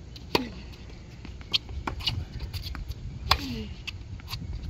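Tennis rally on a hard court: sharp pops of racket strings striking the ball and ball bounces, several over a few seconds, the loudest at the nearer player's hits. After each of his two big hits comes a short falling grunt.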